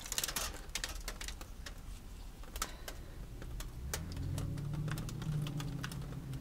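Irregular light clicks and crackles from a paint-covered canvas and the aluminium foil beneath it being handled and tilted with gloved hands. About four seconds in, a low steady hum joins them.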